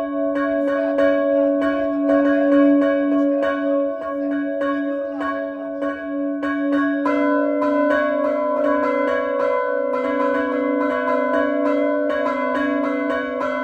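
Peal of five church bells tuned in C, hung in wooden headstocks and frame and rung by hand, striking in quick overlapping succession over their long ringing tones. The mix of bell notes changes about seven seconds in.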